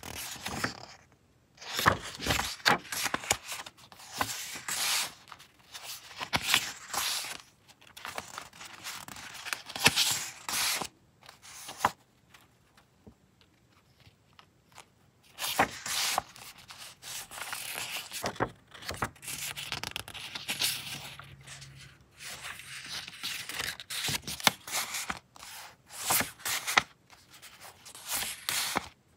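Sheets of printed paper and card (postcards and ruled memo sheets) handled and shuffled, sliding and rustling against one another in repeated bursts. There is a few seconds' pause near the middle.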